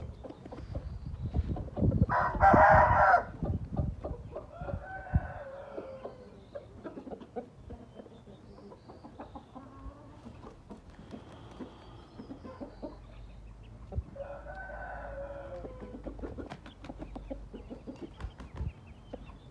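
Gamefowl roosters crowing: one loud crow about two seconds in, and two fainter crows later, with scattered clucks and small clicks between them.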